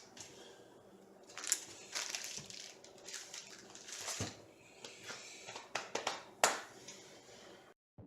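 Packaging being handled and unwrapped: intermittent crinkling and rustling with a few sharper knocks, cutting off abruptly near the end.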